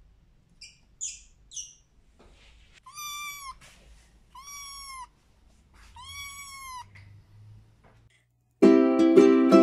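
Siamese kittens mewing: three short high squeaks, then three long meows that rise and fall in pitch, about a second and a half apart. Ukulele music starts suddenly about a second before the end and is the loudest sound.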